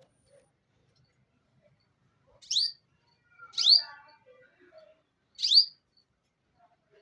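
A bird chirping: three short, sharp, high calls that each drop quickly in pitch, spaced a second or two apart.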